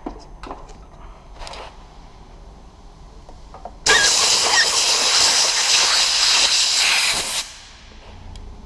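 Compressed air blasting from an air gun in one loud, steady hiss lasting about three and a half seconds, starting and stopping abruptly, preceded by light clicks of parts being handled. Air blown under a rubber handlebar grip lets it slide on without glue.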